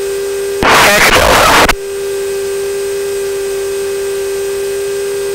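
Steady electrical hum with a few fixed tones on the aircraft's radio intercom audio, broken about half a second in by a loud, roughly one-second burst of garbled radio transmission.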